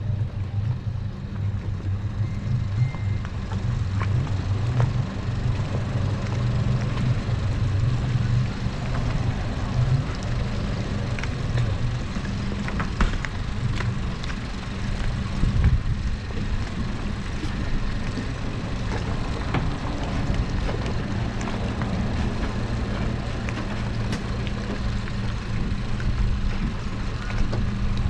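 Motorboat engine running steadily, a low hum, with occasional clicks and knocks.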